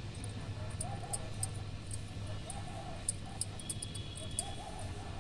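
An animal calling over and over, about four short rising-and-falling cries roughly a second apart, over a low steady hum.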